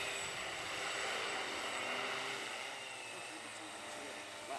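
enRoute Zion AC940 crop-spraying multicopter in flight, its rotors giving a steady hum that slowly fades as it draws away.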